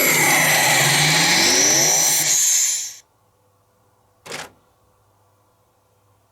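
Electronic sound effect from a CR Tsurikichi Sanpei pachinko machine's speaker: a loud dense whoosh of many sweeping tones rising and falling at once, cutting off suddenly about three seconds in. A short blip follows about a second later, then only the machine's faint steady hum.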